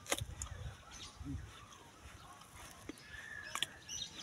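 A crisp crunch as a bite is taken out of a hard, unripe young mango, followed by chewing; another sharp click comes about three and a half seconds in.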